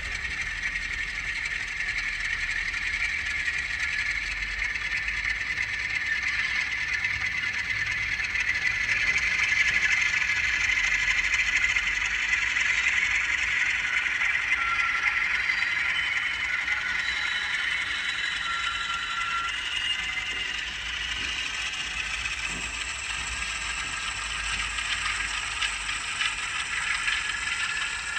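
An N gauge model Class 47 diesel locomotive running on track, its DCC sound decoder playing the diesel engine through a small on-board speaker, thin and without bass, mixed with the clatter of the model's wheels and mechanism. It gets a little louder about a third of the way in.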